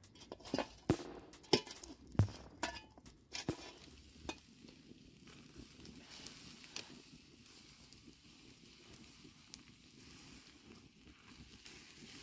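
Wood campfire crackling, with a run of sharp knocks and pops in the first few seconds while the coals are raked with a shovel. After that a faint steady hiss with an occasional single pop.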